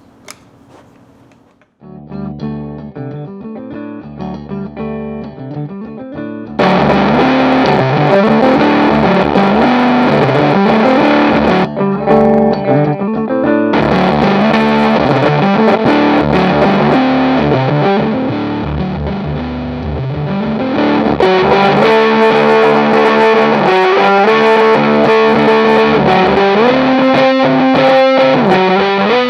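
Electric guitar riff played through a Stone Deaf PDF2 fuzz pedal into a Marshall head, distorted. It starts about two seconds in and gets much louder and fuller about six seconds in.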